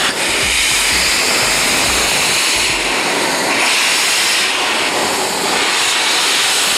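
Loud, steady hiss of steam blowing out from a 1930s Great Western tank locomotive's cylinder drain cocks at the driving wheels. A low rumble under the hiss dies away about three seconds in.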